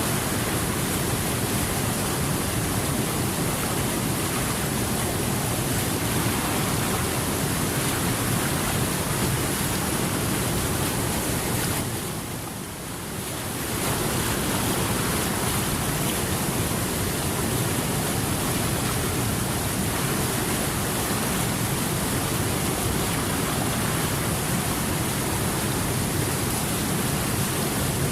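Steady rushing water, a continuous even hiss and rumble with no separate splashes, that briefly drops in level about halfway through before returning.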